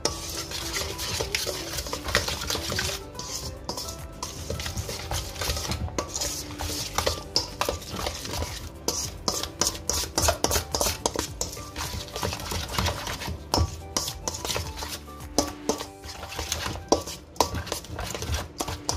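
A spoon stirring and scraping a thick tandoori spice marinade around a stainless steel bowl, with irregular clinks and scrapes against the metal.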